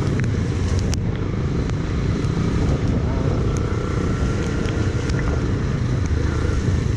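Yamaha FZS single-cylinder motorcycle riding through a flooded street in rain: a steady rumble of engine, wind buffeting the microphone and tyres running through water, with a few sharp ticks.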